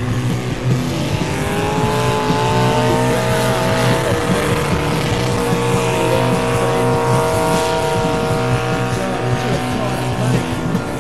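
Pulling tractor's engine running hard at high revs as it drags the weight-transfer sled. A whine climbs over the first few seconds and then holds steady.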